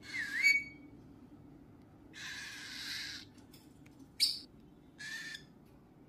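A pet parrot whistling a short note that dips and rises again, then giving a longer harsh, raspy call about two seconds in and two short calls near four and five seconds.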